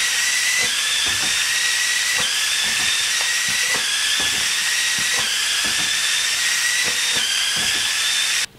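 VEX Nothing But Net robot's flywheel ball shooter spinning at speed: a steady, high hissing whine of motors and gears whose pitch drops a little each time a foam ball is fired, roughly every second and a half, with light knocks as balls are fed through.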